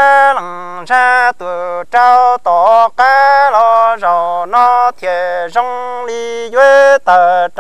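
A solo voice singing Hmong kwv txhiaj, the traditional sung poetry, in long held notes that step from pitch to pitch with short breaks for breath.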